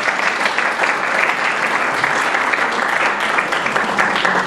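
Audience applauding at the end of a talk: many hands clapping in a dense, steady patter.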